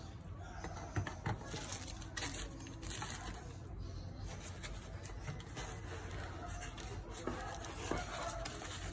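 Packaging being handled: foam inserts and a plastic sheet rustling and scraping against a cardboard box, with a few light knocks.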